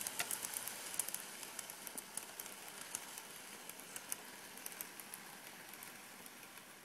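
N-scale model passenger train running on its track with a soft hiss and irregular light clicking of its wheels over the rail joints, growing fainter as it moves away.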